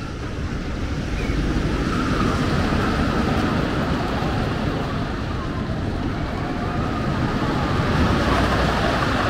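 A wooden roller coaster train running over its wooden track. The noise builds about a second in and then stays loud.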